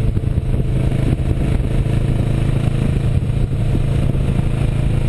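Kawasaki Versys motorcycle riding at a steady road speed: its engine drones evenly, mixed with wind rush on the bike-mounted camera.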